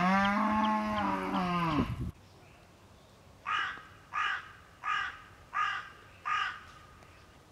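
A cow mooing in one long, drawn-out call that cuts off abruptly about two seconds in. After a pause, a crow-like bird caws five times, evenly spaced.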